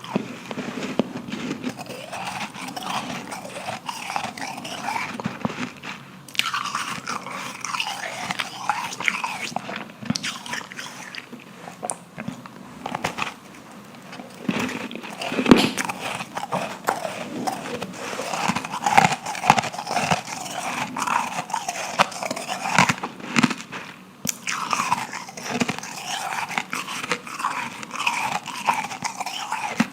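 Powdery ice bitten and chewed close to the microphone, with crisp crunches and crackling on every bite. One sharp crack stands out about halfway through.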